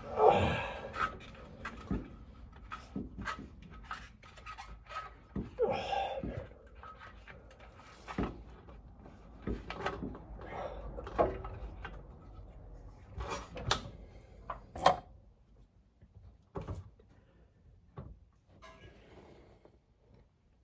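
Scattered clicks and knocks of a rear lowering coil spring and its adapter being worked and seated into a car's rear spring perch by hand, with a couple of short strained sounds from the worker near the start and about six seconds in.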